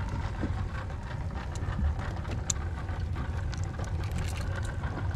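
A motorboat engine running steadily as a low rumble, with water noise around the kayak and a few faint clicks.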